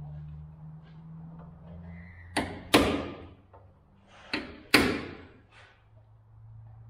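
Hammer blows on the steel lower front panel of a Holden Torana body: two pairs of sharp metallic strikes, each a lighter tap followed by a hard blow that rings briefly, about two seconds apart, then a fainter knock. A low steady hum underneath stops about two seconds in.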